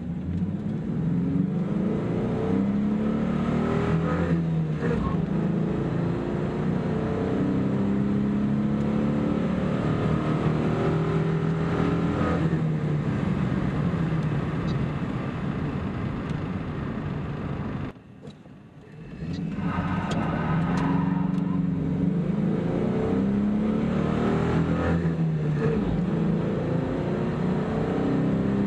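1996 Ford Mustang's 3.8 L 90-degree V6 on its stock single 2-inch exhaust, heard from inside the cabin, accelerating hard in a manual car. The pitch climbs and falls repeatedly as it revs up through the gears, with a brief drop in sound about two-thirds of the way through.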